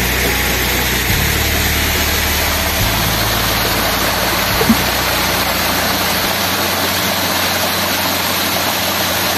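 Steady rush of flowing water, with a low hum beneath it that stops about six seconds in.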